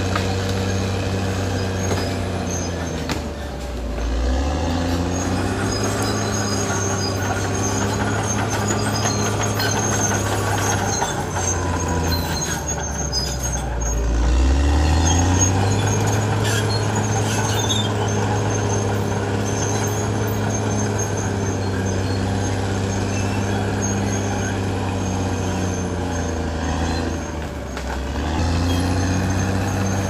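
Caterpillar D6R XL bulldozer's diesel engine running hard, its pitch sagging about four seconds in, again around fourteen seconds and near the end, each time climbing back up.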